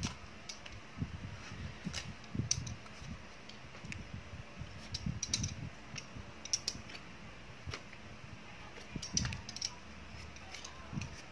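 Fingers scraping seeds and pulp from pumpkin pieces, seeds dropping into a plastic basket: irregular small clicks and taps with soft thuds.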